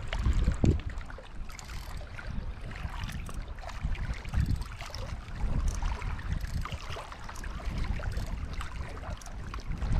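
Small waves lapping and splashing against lakeshore rocks, with wind rumbling on the microphone.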